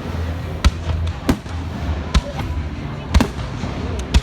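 Fireworks going off in a display: about five sharp bangs, roughly a second apart, over a steady low hum.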